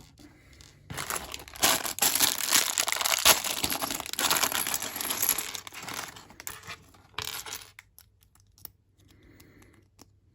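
Plastic minifigure packet being torn open and crinkled for several seconds, followed by scattered small clicks of pieces being handled.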